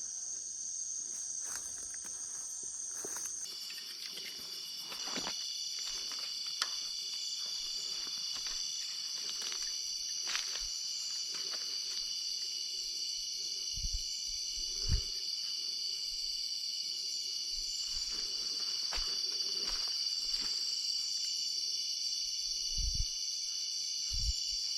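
A chorus of insects giving a steady, high-pitched, many-toned buzz; its pitch pattern shifts a few seconds in. A few short, low knocks come later.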